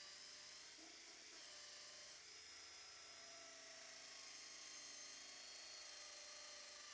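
Cordless drill spinning an internal PVC pipe cutter inside a 2-inch PVC drain pipe, trimming the pipe down to height; a faint, steady whine.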